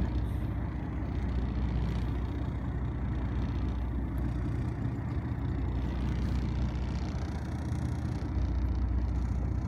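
Fishing boat's engine running steadily at low speed, a constant low hum with a wash of noise above it.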